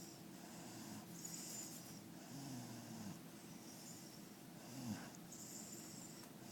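A sleeping dog snoring, with a slow breath with a hissy whistle about every two seconds and a short snort just before the end.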